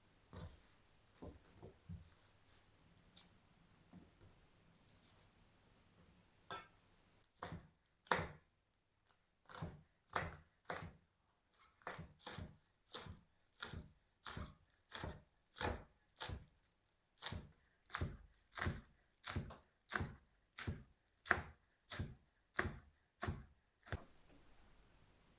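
Knife chopping on a cutting board in slow, even strokes, about three cuts every two seconds, after a few scattered lighter knocks in the opening seconds.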